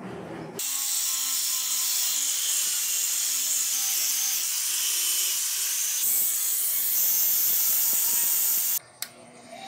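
Angle grinder running a red abrasive polishing wheel over the flat of a steel cleaver blade: a steady, high hiss of the wheel on the metal over the motor's hum. It starts about half a second in and cuts off suddenly near the end.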